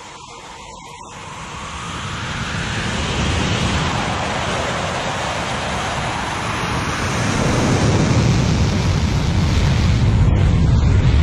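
Rolls-Royce EJ200 jet engine of the Bloodhound land-speed car at full power as the car accelerates, a rising roar mixed with rushing wind on the microphone. It swells about two seconds in and grows louder again near the end as the speed builds.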